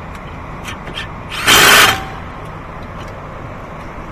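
A power tool fitted with a Torx bit runs in one short burst of under half a second, about one and a half seconds in, driving a brake caliper slide bolt home. A few light clicks of the tool and bit come before it.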